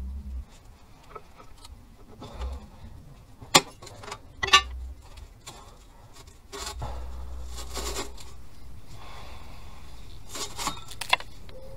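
Old, rusty exhaust pipe under a VW Caddy van being twisted and worked loose by hand: metal rubbing and scraping, with a few sharp clanks.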